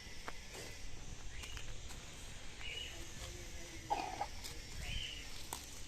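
Outdoor background with a few short, scattered bird chirps and some faint clicks.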